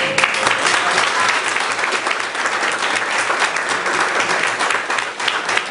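A small crowd applauding: many hands clapping in a dense, steady run.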